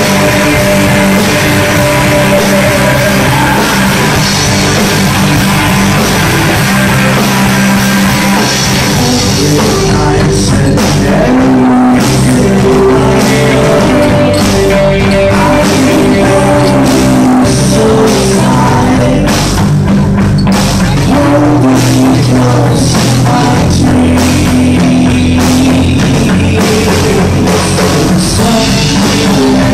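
A live rock band playing loud: electric guitars, bass and a drum kit, with a male singer on vocals. The sound is a dense wall for the first part, then about ten seconds in it opens up and the drum hits stand out more sharply.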